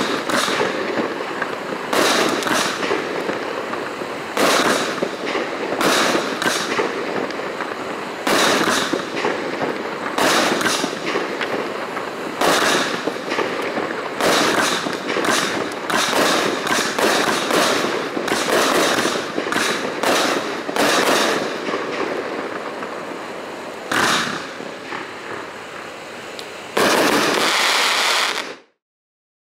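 A 20-shot, 500-gram consumer firework cake firing shot after shot, with a sharp report every second or two and crackling in between. It builds to a louder, denser burst near the end and then stops abruptly.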